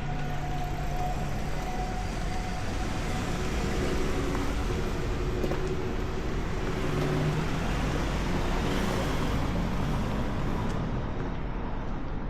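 A motor vehicle passing close by. Its engine and road noise swell over the middle seconds and fade near the end.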